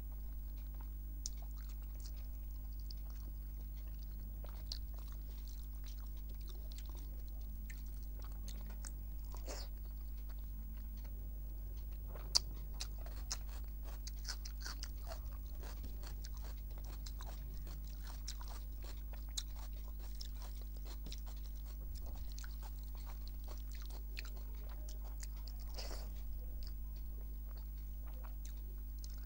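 Close-miked chewing and wet mouth clicks of a person eating rice with cabbage fry and brinjal fry by hand, many small irregular clicks, one sharper than the rest about twelve seconds in. A steady low hum runs underneath.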